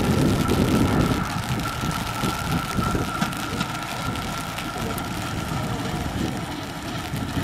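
Jeep converted to run on rails driving past with its engine running, a low rumble that is loudest in the first second and then fades as it moves away.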